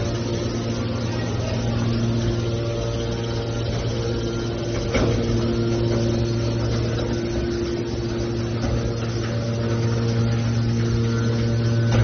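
Hydraulic scrap metal baler's power unit running with a steady low hum, its electric motor and pump held at one speed, with a single knock about five seconds in.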